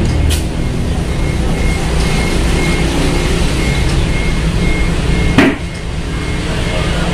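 Compressed air hissing steadily through an air-hose chuck into a car tyre's valve stem, with a low rumble beneath. A single sharp burst about five and a half seconds in, after which it is briefly quieter.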